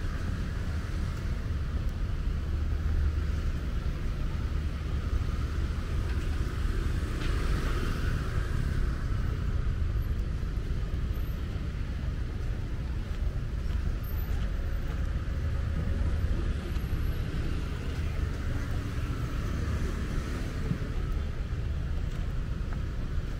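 Road traffic going by: a steady low rumble of cars, with one vehicle passing more closely about seven seconds in.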